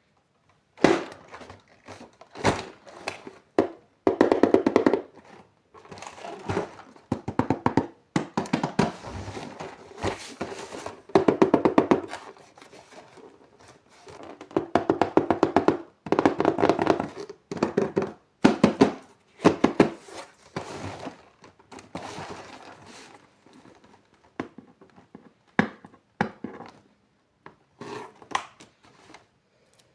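Surprise eggs being handled and opened by hand: a run of knocks, clicks and rattles that come in bursts with short pauses between them.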